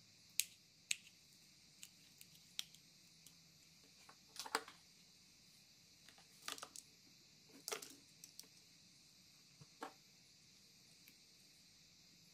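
Scattered small clicks and brief clattering of LED bulb parts being handled: the plastic bulb housing and metal LED plate knocked and set about. Single sharp clicks come in the first few seconds, with short bursts of rattling around the middle.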